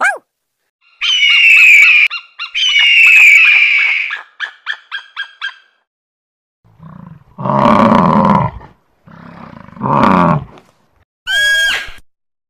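A run of different animal calls. First come two long high calls that fall in pitch, then a quick run of short calls at about five a second. Two deep, rough calls follow, the loudest low sounds, and a short high wavering call comes near the end.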